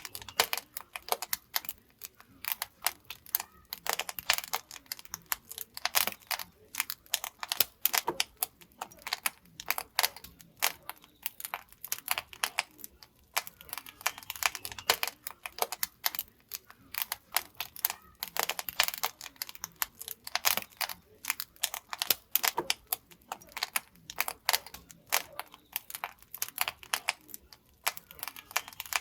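Firewood burning in a traditional Korean wood-fired pottery kiln, crackling with many quick, irregular pops and snaps.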